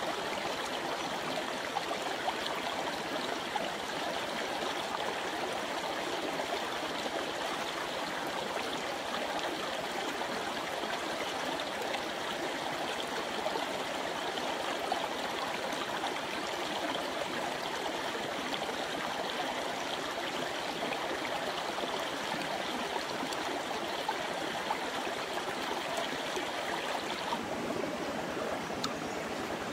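A jungle stream running steadily over rocks.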